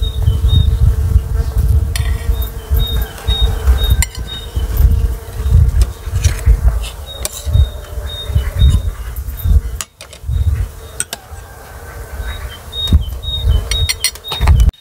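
A flying insect buzzing close by, its drone holding steady and later swelling and falling as it passes, with light clinks of spoons on ceramic plates as food is served. A heavy, uneven low rumble runs underneath.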